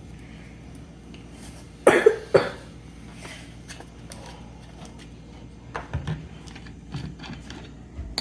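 A woman coughing, three quick coughs about two seconds in, brought on by the sharp fumes of burnt dried chilies. Softer clicks and taps follow later.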